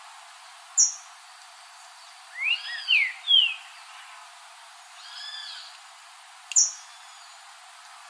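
Green-winged saltator (trinca-ferro) singing a short phrase of loud slurred whistled notes, rising and falling, about two and a half seconds in, then a fainter arched phrase around five seconds. Two sharp high ticks come, one about a second in and one near the end.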